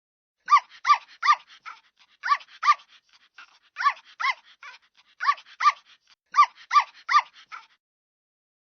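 Puppy yapping: short, high-pitched yips that rise and fall in pitch, coming in quick bunches of two to four with short pauses between.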